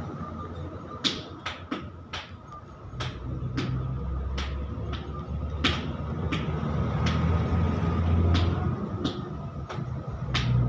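Keys on a Nokia 150 feature phone's keypad clicking one press at a time, about fifteen presses spaced irregularly, as digits are typed in. Under them runs a low, steady vehicle rumble that gets louder after a few seconds.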